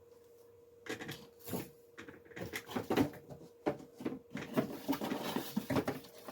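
Rustling and irregular clicking of camcorder accessories and their packaging being handled and rummaged through. It starts about a second in and grows busier.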